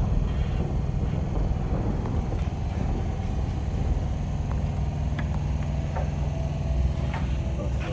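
A motor running steadily with a low hum and rumble, and a few faint knocks in the second half.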